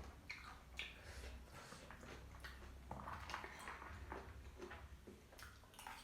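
Close-miked eating: irregular crunching, chewing and mouth clicks from crispy Nepali street snacks (panipuri puris and chatpate), over a low steady hum.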